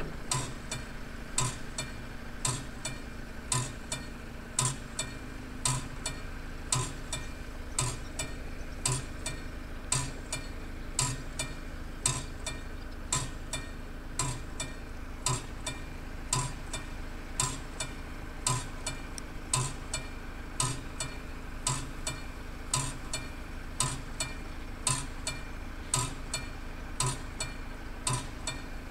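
Classic level-crossing warning bell ringing with a steady run of evenly spaced metallic strikes, about three every two seconds, sounding while the crossing is closed for an approaching train.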